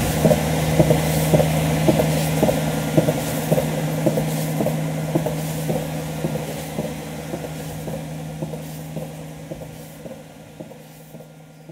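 Dairy milking machine running: a steady mechanical hum with the pulsator's rhythmic clicking, about two to three clicks a second, gradually fading out.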